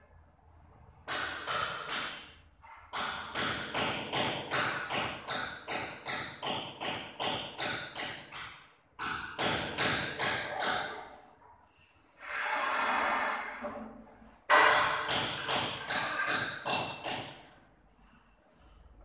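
Rapid runs of sharp, ringing taps, about three a second, stopping and starting several times, with a swelling burst of noise lasting about two seconds around the middle.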